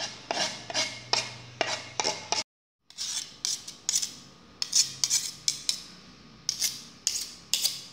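Steel kitchen knife scraping and tapping on a wooden cutting board and a ceramic plate as minced garlic is pushed off the board: a quick series of short scrapes and clicks, broken by a brief silence about a third of the way in.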